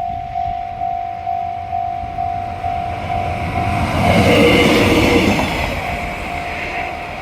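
Japanese level-crossing warning bell ringing in a steady pulse, about two strikes a second, as a JR Freight DF200 diesel locomotive passes over the crossing. The passing train swells to its loudest about four to five and a half seconds in, drowning the bell, then eases off as the bell is heard again.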